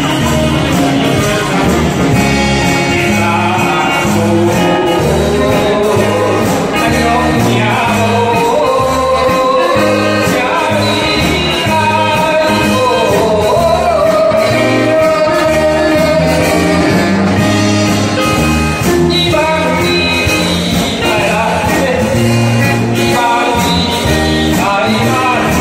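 A man singing a song into a handheld microphone over backing music with a steady beat.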